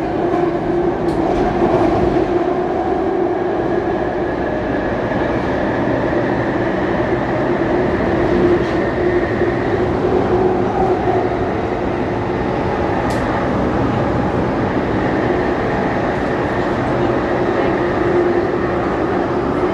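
Jubilee line 1996 stock Underground train running: a steady loud rumble with humming motor tones that drift slightly in pitch.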